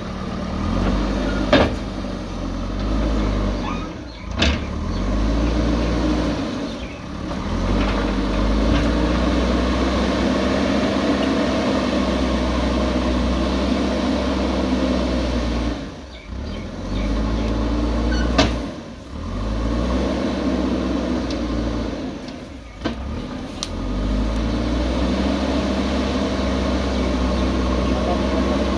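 A JCB backhoe loader's diesel engine running, its revs rising and falling as it works, with a few sharp knocks.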